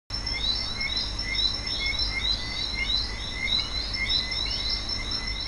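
Chorus of animal chirps: short, high calls repeating several times a second without a break, over a low steady hum.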